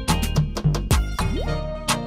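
Background music with a quick, steady beat of sharp percussion hits over held instrument notes.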